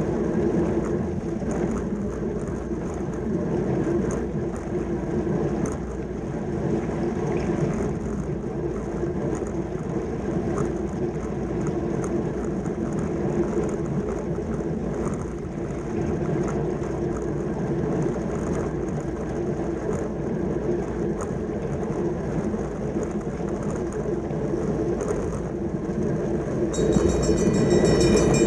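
Steady rumble of wind and rolling noise from riding in a track-cycling points race. Near the end it grows louder and a high ringing sound comes in.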